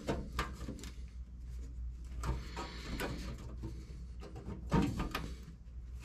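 A sheet-metal patch panel being pushed and shifted by hand against a truck's floor pan, with light scrapes, taps and clunks of metal on metal and a louder knock near the end. A steady low hum runs underneath.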